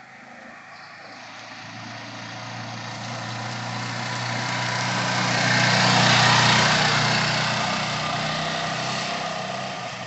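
A motor vehicle passing by: its noise swells to a peak about six seconds in and fades again, over a steady low engine hum.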